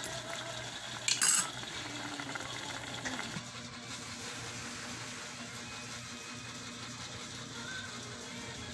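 Shrimp sauce bubbling in an electric rice cooker pot as a spoon stirs it, with one brief scrape or clink of the spoon on the pot about a second in, over a steady low hum.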